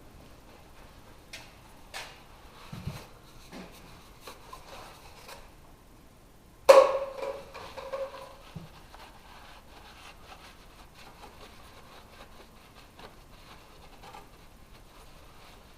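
Hand work on a car: scattered light clicks and scrapes, then one sharp clank about seven seconds in that rings briefly, followed by faint scraping.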